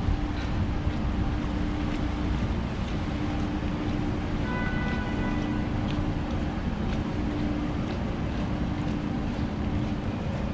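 Wind buffeting the microphone, with rain on an open umbrella and a steady rumble of city traffic below. A steady low hum comes and goes, and a brief high whine sounds about halfway through.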